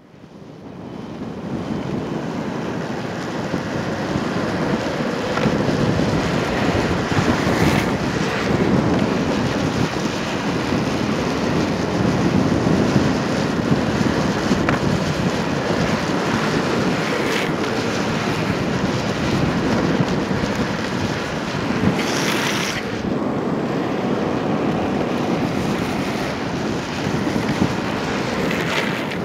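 Longboard urethane wheels rolling fast over asphalt, a steady roar mixed with heavy wind buffeting the microphone. A brief, sharper hiss comes about three-quarters of the way through.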